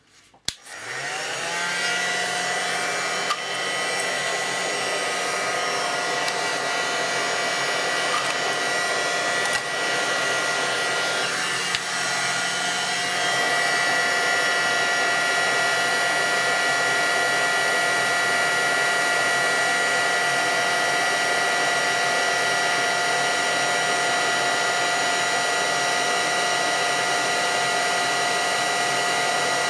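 Hot air rework gun switched on with a click, its blower spinning up over about a second and then running steadily with a constant whine, desoldering an EEPROM chip from a circuit board.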